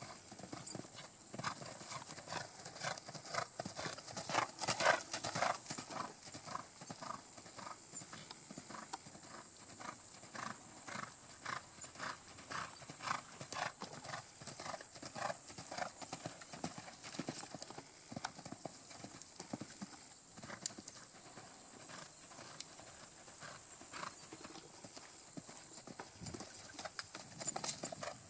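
Hoofbeats of a cantering horse on sand arena footing: a steady run of dull beats, loudest about four to six seconds in.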